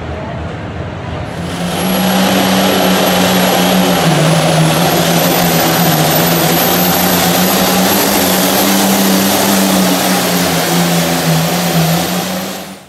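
Modified diesel pulling tractor at full throttle, dragging a weight-transfer sled down the track. Its engine note holds mostly steady, with two brief dips in pitch. The sound comes in about a second and a half in and cuts off suddenly near the end.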